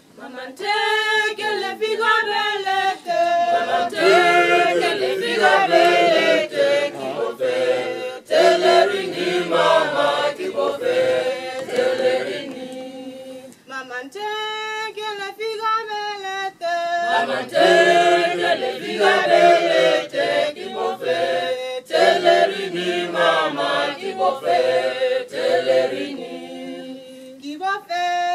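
A group of voices singing unaccompanied in harmony, in phrases with a short break about halfway through.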